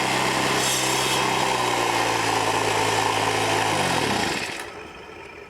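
Small four-stroke engine of a Troy-Bilt sidewalk edger, turned into a stump grinder with carbide-tipped saw blades, running at speed while the blades grind into a green cedar stump. Near the end the engine's pitch falls as it winds down and the grinding stops.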